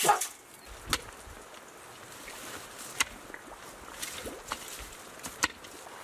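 A chicken clucks briefly at the very start. Then a few sharp clicks sound over a quiet background: one about a second in, one halfway through and one near the end.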